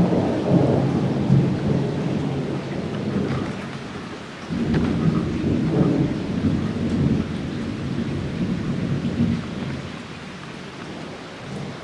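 Thunder rumbling over steady rain, with a fresh, louder peal breaking in about four and a half seconds in and dying away near the end.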